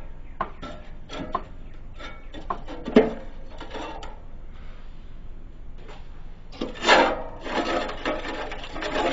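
Rusty cut-open steel muffler being handled: scattered clicks and a sharp metal knock about three seconds in, then a longer stretch of scraping near the end.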